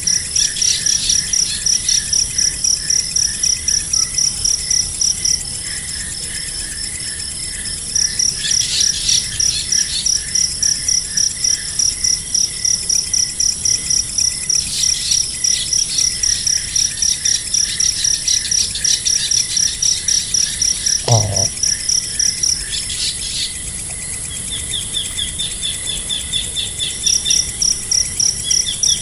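Insects chirping in a rapid, steady pulsing that pauses twice, with short bursts of bird chirps over it. A single brief low knock sounds about two-thirds of the way through.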